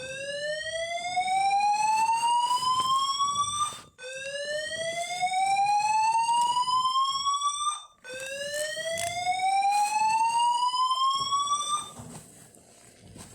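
Fire alarm sounding a slow-whoop evacuation tone: three rising sweeps, each climbing steadily in pitch for about four seconds and then cutting off abruptly before the next begins.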